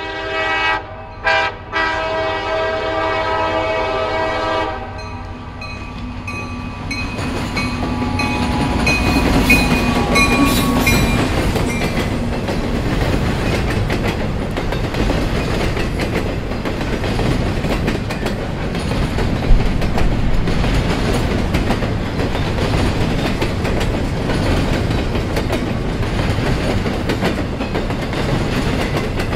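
Indiana & Ohio diesel locomotives sound their air horn, two short blasts and then a long one ending about five seconds in. The locomotives' engines go by, and then double-stack well cars roll past with steady wheel clatter and rumble.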